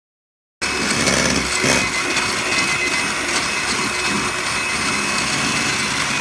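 Electric hand mixer running steadily, its twin beaters whipping raw eggs in a stainless steel bowl. A constant motor whine sits over the whirring, and the sound starts abruptly about half a second in.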